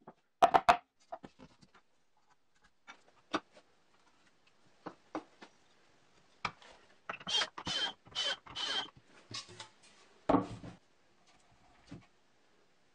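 Plywood pulley parts being handled on a wooden workbench: three sharp knocks early, scattered small clicks, then four scraping strokes about half a second apart, and a heavy thump a little after ten seconds.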